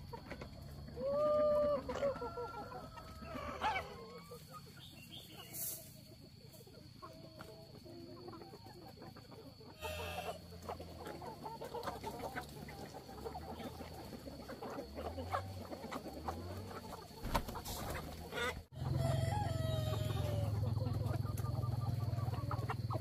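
Free-range chickens clucking and calling, with a rooster crowing. Near the end a steady low hum comes in and stays under the birds.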